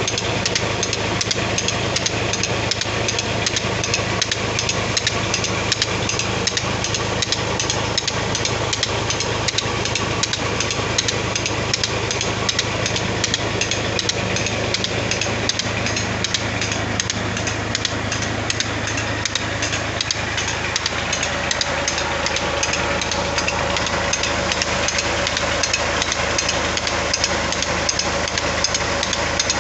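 Massey Ferguson 240 tractor's three-cylinder diesel engine running steadily under load, driving a tubewell pump through a long flat belt. A sharp, regular clicking about three times a second runs over it.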